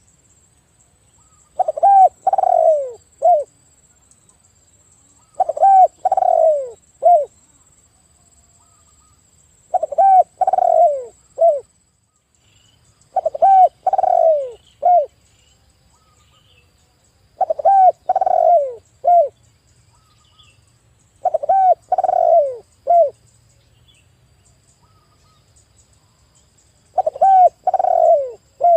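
Spotted dove (tekukur) calling loudly. Its three-to-four-note cooing phrase repeats seven times, about one every four seconds.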